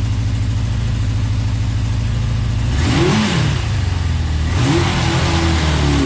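1981 Suzuki GS650's four-cylinder engine idling, then revved twice on the throttle: a quick blip that rises and falls about three seconds in, then a second rev about a second and a half later that stays high near the end.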